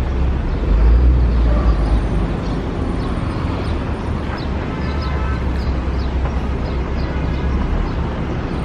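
Urban outdoor ambience: steady traffic noise with a heavy low rumble, and a few short high chirps in the middle.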